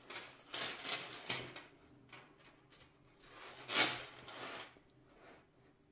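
Handling of a crocheted T-shirt-yarn handbag and its metal chain strap: soft rustles with light chain and clasp clinks, in several short bursts, the loudest a little under four seconds in.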